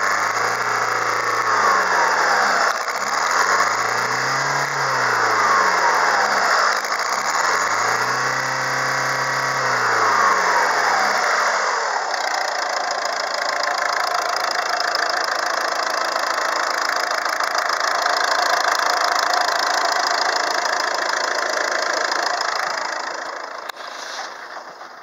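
Peugeot 1.6 HDi four-cylinder turbodiesel engine revved up and let fall back three times, then running at a steady speed. The sound fades near the end.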